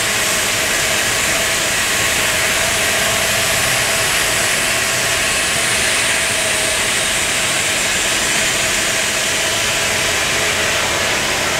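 Steady machinery noise of a granite-cutting factory: a constant loud hiss with a few faint steady hums, unchanging throughout.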